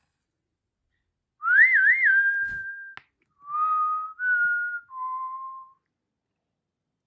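A person whistling a short tune: a note that wavers up and down twice and then holds, followed by three shorter held notes, the middle one higher and the last one lowest. A sharp click comes as the first note ends.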